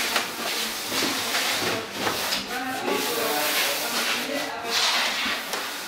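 Wooden bunk-bed frame being swung round on its hinged pivot, its feet rubbing and scraping across the floor with a hissing drag and a few light knocks of timber.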